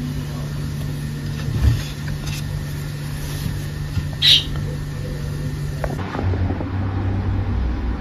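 Steady low electrical hum, with a soft thump about a second and a half in and a short high squeak just past four seconds. About six seconds in, the hum gives way to a lower hum with more rumble.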